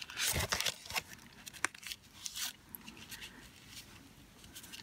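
Cardstock lined with tissue paper being folded by hand along its score lines: papery crinkling and crackling, busiest in the first second, then smaller crackles.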